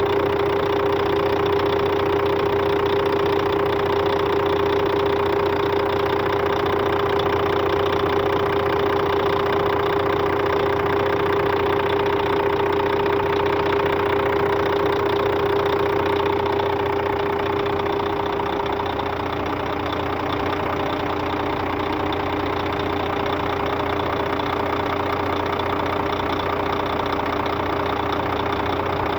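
Scania DC13 13-litre six-cylinder diesel engine of a Scania K400 bus running steadily, with a strong, steady whining tone over the engine sound and the level easing slightly about seventeen seconds in. This is the engine the customer reported for a strange noise.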